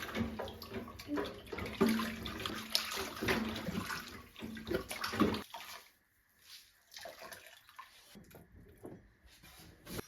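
Water running from a kitchen tap into a sink, a steady rush with light knocks, which stops abruptly about five and a half seconds in, leaving only faint scattered sounds.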